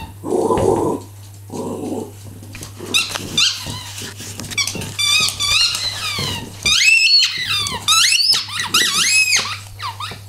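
Squeaky rubber bone toy being chewed by a small white terrier, squeaking over and over in quick series, each squeak sliding up and down in pitch. Two short low noises come near the start, before the squeaking gets going.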